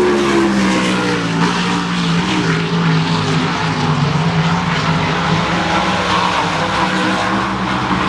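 Sprint car engine running hard and steadily, its pitch dipping slightly at the start and then holding fairly level.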